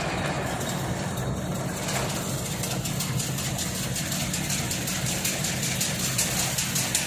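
Chain link fence weaving machine running steadily: a constant motor hum with fast, even clicking from its mechanism.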